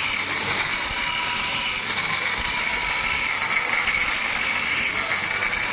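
Workshop machinery running steadily: a high whine over a continuous noisy hiss.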